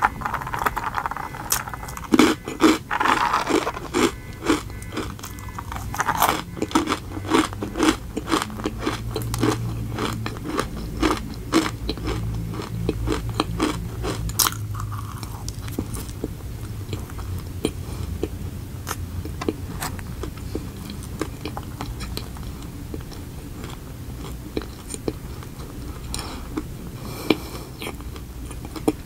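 Close-miked chewing of a glazed donut, with many wet mouth clicks and small bites, thick for about the first half and sparser after that.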